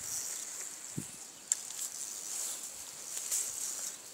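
Quiet pond-side outdoor ambience with faint rustling, a soft thump about a second in and a sharp click shortly after.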